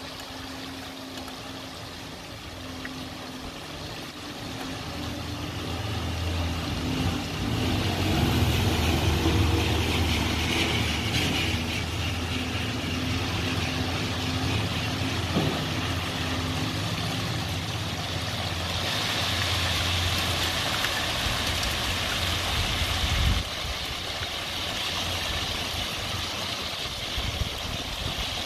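Heavy rain falling steadily in a thunderstorm. A deep low rumble builds from about four seconds in, is loudest around a third of the way through, and cuts off suddenly near the end.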